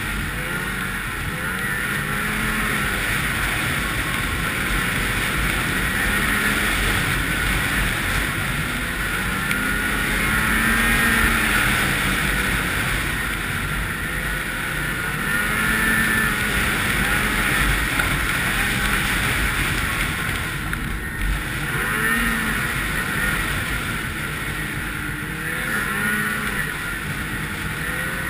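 Ski-Doo 800 two-stroke snowmobile engine running at speed along a trail, its pitch rising and falling with the throttle, with wind noise on the microphone.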